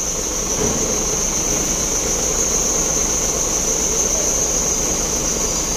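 Mobile crane's diesel engine running steadily, with a constant high insect drone over it.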